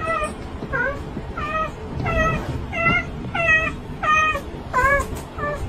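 A cat meowing in a steady series of short meows, about nine of them, one every two-thirds of a second or so.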